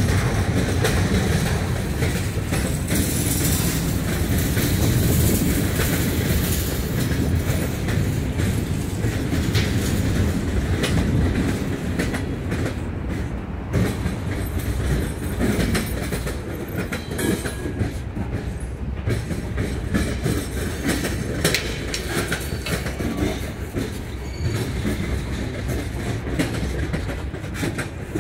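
Freight train cars rolling past: a steady rumble of steel wheels on rail with repeated clickety-clack clicks and knocks from the wheels crossing the track, the clicks more distinct in the second half.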